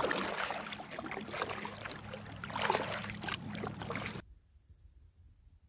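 Kayak paddle strokes: a double-bladed paddle dipping and pulling through river water, with repeated splashing and dripping. It cuts off suddenly about four seconds in to a faint quiet background.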